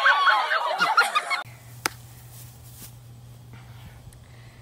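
Several girls' voices squealing and shrieking high-pitched, overlapping, cutting off abruptly about a second and a half in. After that, only a faint steady low hum with one sharp click.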